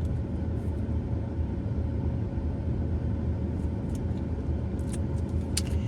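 Steady low rumble of a running car, with a faint constant hum and a few light clicks near the end.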